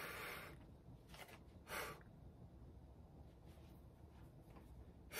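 A man's short, forceful breaths while flexing, against near silence: one at the start, a faint one about a second in and a short sharp one near two seconds.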